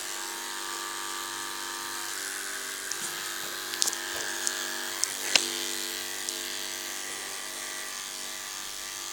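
Electric dog-grooming clipper running with a steady buzz as it shaves a schnauzer's throat and chest against the grain. A few sharp clicks come in the middle.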